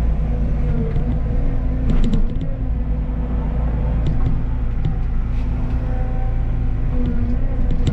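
Caterpillar tracked excavator's diesel engine running steadily, with a few short clicks and squeaks about two seconds in and again near the end.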